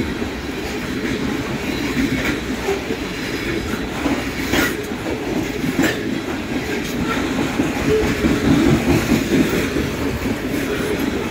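Loaded coal train's freight cars rolling past: a steady rumble of steel wheels on rail, with a few sharp clicks from the wheels, the strongest about four and a half seconds in.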